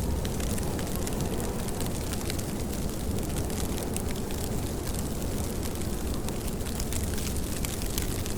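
Steady rain: an even rushing noise with a deep low rumble and a dense scatter of small drop ticks.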